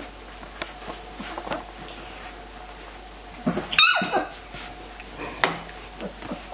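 Young puppies squeaking and whimpering, with small rustling clicks as they shift on the bedding. About halfway through, one puppy gives a loud, high cry that falls in pitch.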